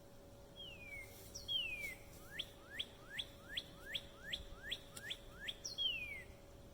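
A songbird singing clear whistled notes: two falling slurs, then a fast run of about ten rising whistles at roughly three a second, ending with another falling slur. A faint steady hum runs underneath.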